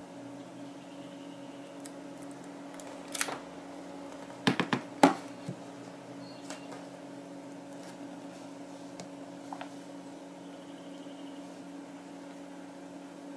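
A smartphone handled and set down on a wooden table: a few short taps and knocks between about three and five seconds in, over a steady low electrical hum.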